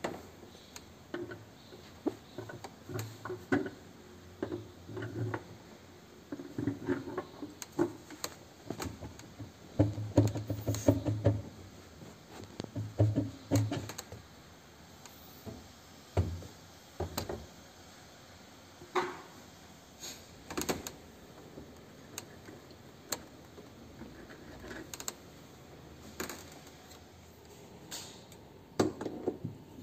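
Irregular knocks, clicks and rattles with dull thumps, the sound of washing-machine parts being handled and worked on during disassembly. The thumps and rattles come most often in the first half and thin out to scattered clicks later.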